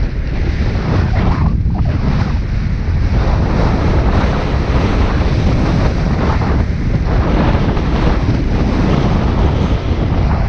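Wind rushing and buffeting on the camera microphone during a fast downhill ski run, mixed with the hiss of skis sliding through the snow, swelling and dipping with the turns.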